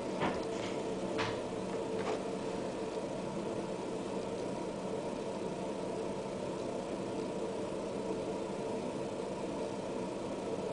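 Steady mechanical hum made of several held tones, with a few faint short ticks in the first two seconds.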